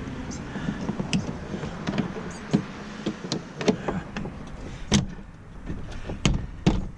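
Irregular clicks and knocks of truck door parts and plastic trim being handled and fitted, with a few louder knocks about five seconds in and near the end.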